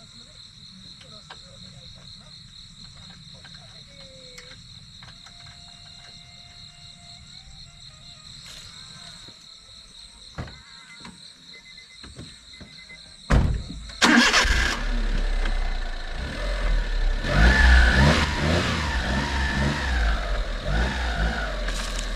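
Insects keep up a steady high drone. About 13 seconds in, an engine starts and runs loudly, its pitch rising and falling as it is revved.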